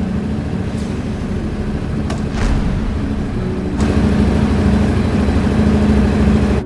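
Honda V3R 900 E-Compressor's water-cooled 75° V-three motorcycle engine running and revving with a pulsing rumble, with a couple of whooshes. It grows louder about four seconds in, then cuts off abruptly.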